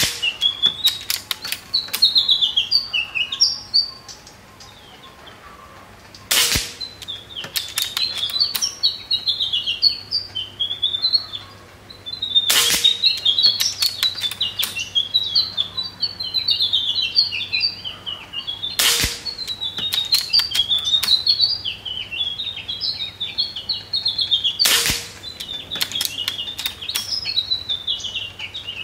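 Four shots from a Seneca Eagle Claw .25-calibre PCP air rifle, about six seconds apart, each a short sharp report. There are light clicks between the shots, and small birds chirp throughout.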